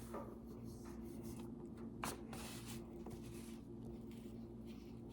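Faint scratchy brushing of a paintbrush working paint, with a sharper tap about two seconds in, over a steady low electrical hum.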